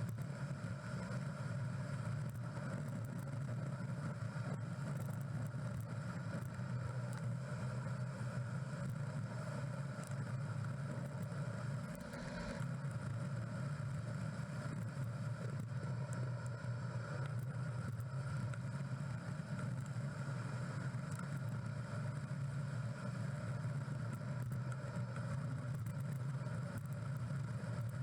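Steady low rumble of wind and road noise while riding a road bike, with no sudden events.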